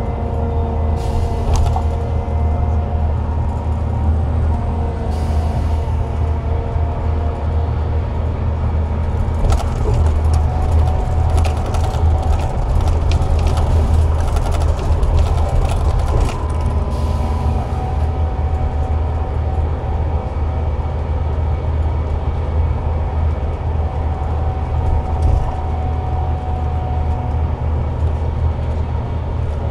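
Scania K360IB bus under way, heard from inside: its DC13 six-cylinder diesel gives a steady low drone, with a gearbox and retarder whine that drifts up and down in pitch. A run of rattling clicks comes from about ten to seventeen seconds in.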